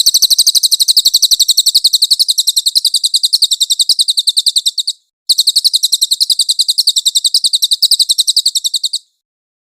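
Cililin songbird singing a high, rapid run of evenly repeated chirps, in two long bouts with a short break about five seconds in, stopping about nine seconds in. It is a masteran recording, birdsong played to tutor caged songbirds.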